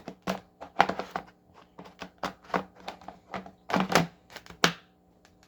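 Irregular clicks, taps and knocks of hard objects being handled and set down, with a couple of louder clunks near the end.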